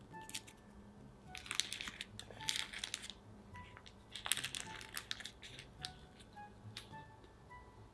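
Pleated paper baking liner being peeled off a soft steamed cake, crinkling and tearing in two bursts, about a second in and about four seconds in, over soft background music.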